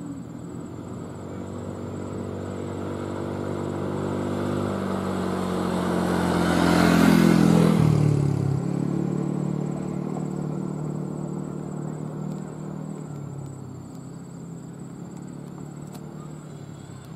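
A motor vehicle's engine passing close by: it grows louder for several seconds, drops in pitch as it goes past about eight seconds in, then fades away.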